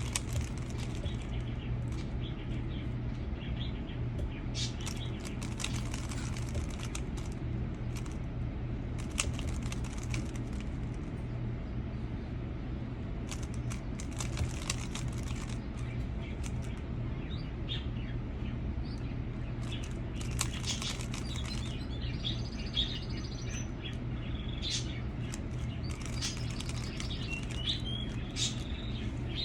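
A 3x3 Rubik's cube being turned in quick bursts of plastic clicking, layer after layer, with pauses between the bursts.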